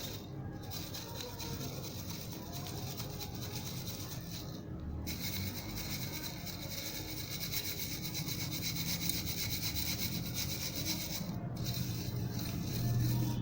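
Mesh scrubber rubbed and crushed with red powdery dust, a continuous crunchy scratching; it turns louder and brighter about five seconds in.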